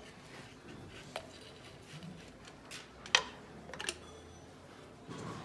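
Light scattered clicks and taps of a compression gauge and its hose being handled and moved between spark-plug wells on a bare engine. The sharpest click comes about three seconds in, followed by a few small ticks.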